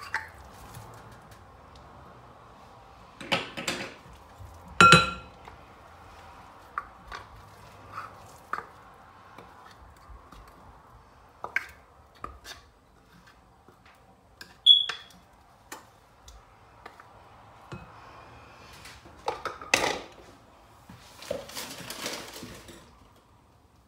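Kitchenware handled: a utensil tapping, scraping and clinking against bowls as ground fish is emptied into a mixing bowl. Scattered short knocks, with a loud clink about five seconds in, a brief ringing ping midway and a stretch of scraping near the end.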